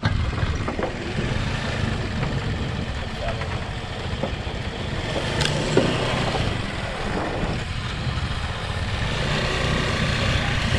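Vehicle on the move: its engine running with a steady rumble of road and wind noise.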